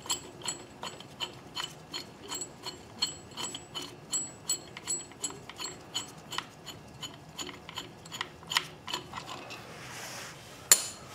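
Clutch spring compressor tool being unscrewed off a Harley Sportster clutch with a ratcheting handle: steady metallic clicks, about two a second. Near the end comes a brief hiss, then one loud, sharp metal clack as the tool comes free.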